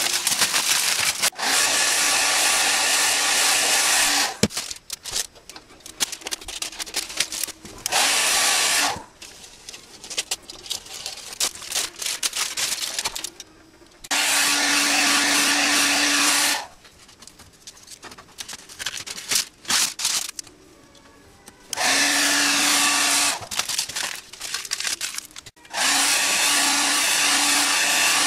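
Electric heat gun blowing in five bursts of one to four seconds, switched on and off, warming masking tape on motorcycle fairing panels so it peels off more easily. Between bursts come crackling and clicks of tin foil and tape being handled.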